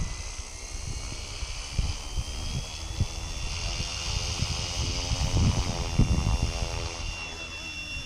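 FlyWing FW450 electric RC helicopter spooling up for takeoff: a high motor whine rising slowly in pitch while the rotor buzz builds. Low gusts of air buffet the microphone.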